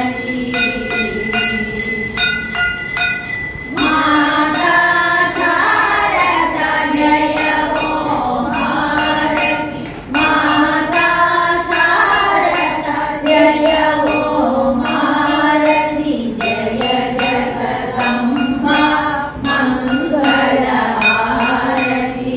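Devotional hymn sung by a group of voices over a steady drone, with regular metallic strokes keeping time. A hand bell rings in the first few seconds before the singing comes in.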